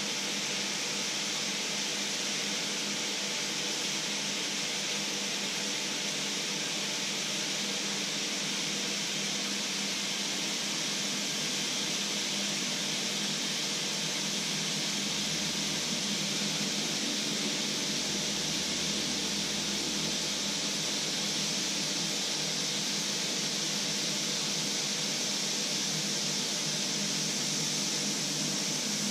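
Hot pan sizzling steadily on the hob: an even, continuous hiss, with a steady low hum beneath it.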